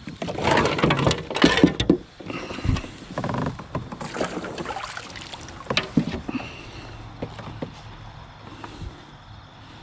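Knocking, rustling and clattering as a bass is handled and laid out for measuring in a kayak. The clatter is busiest in the first two seconds, then thins to scattered clicks and knocks over a faint hiss.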